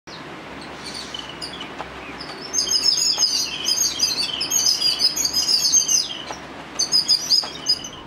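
Songbird singing: a rapid, varied run of bright high chirps and whistles. A few scattered notes come first, then dense song from about two and a half seconds in, a short pause, and a last burst just before the end.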